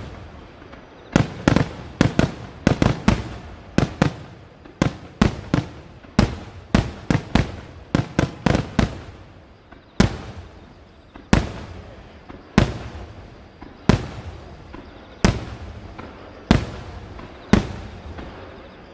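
Aerial firework shells bursting in a rapid barrage of sharp bangs, each trailing off in a rumbling echo. About ten seconds in, the bangs thin out to one every second or so.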